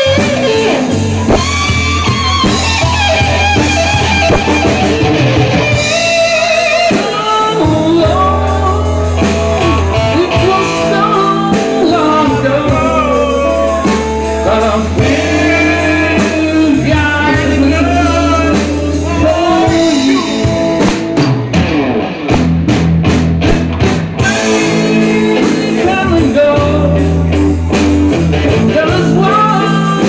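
Live blues-rock band playing loud: electric guitar through an amplifier, drum kit and a man singing.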